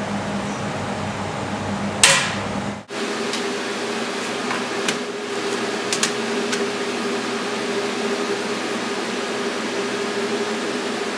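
Chocolate moulding machinery running with a steady hum. A sharp clank sounds about two seconds in, the hum breaks off briefly and returns at a higher pitch, and a few light clicks follow.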